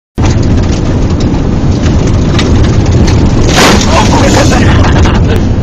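Ford Escort ZX2 driving on a gravel road, heard from inside the cabin: very loud, dense engine and road rumble with scattered clicks and rattles, and a harsher noisy burst about three and a half seconds in.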